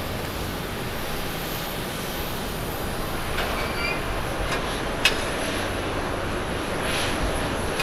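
Distant jet airliner engine noise, a steady even sound, with one sharp click about five seconds in.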